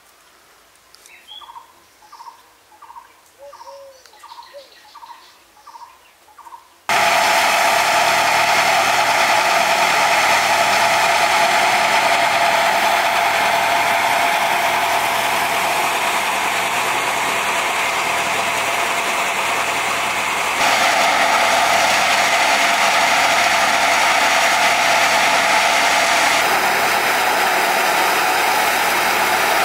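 A short chirping call repeats about eight times, roughly two a second. About seven seconds in, a loud, steady engine-like machine noise cuts in abruptly and keeps running.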